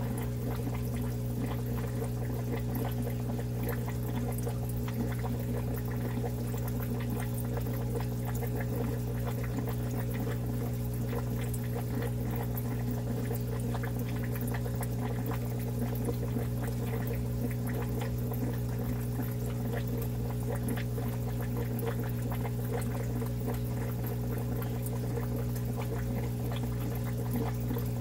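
Aquarium equipment running steadily: a constant low hum with evenly spaced overtones over a continuous sound of pouring, trickling water.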